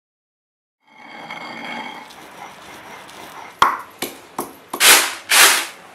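Stone mortar and pestle pounding: four sharp knocks about half a second apart, then two loud crunching grinds.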